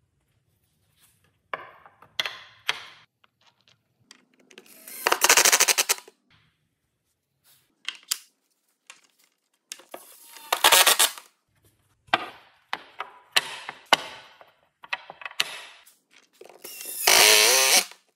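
Cordless impact driver driving screws into hardwood in several short bursts of rapid hammering, each up to about a second long. Lighter clicks and knocks come between the bursts.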